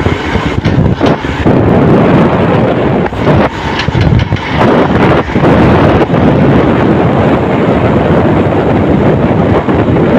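Wind rushing over the microphone on a moving motorcycle, mixed with the motorcycle running underneath.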